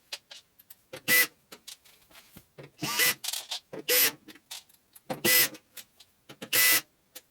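Electric screwdriver whirring in about five short bursts as it backs screws out of a dishwasher's front panel, with small clicks between the bursts.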